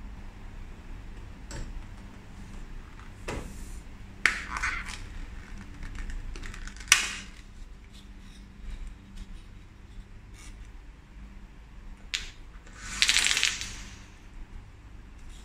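Hand-handling sounds: scattered clicks and cardboard rustling as a capsule sleeve is opened, with one sharp click about seven seconds in. Near the end, a short clattering rush as coffee capsules tip out onto a wooden tabletop.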